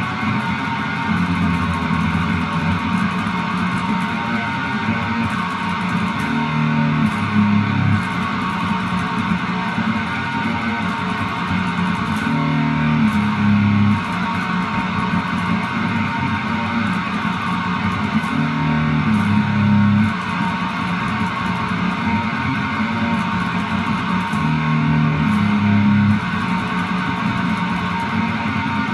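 Background music: electric guitar with bass, in a repeating pattern.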